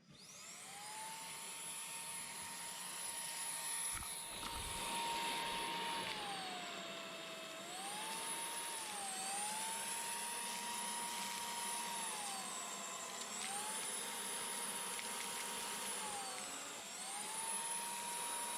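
Panasonic cordless stick vacuum switching on, its motor whine spinning up to a steady high pitch. The pitch then dips and recovers four times, with a knock about four seconds in.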